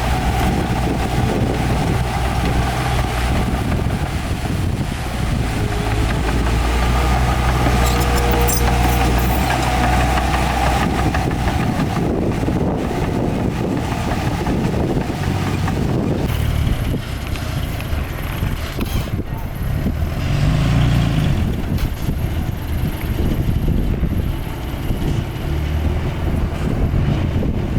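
Heavy diesel earthmoving machinery running: a steady low engine drone for the first dozen seconds, then a rougher, more uneven sound.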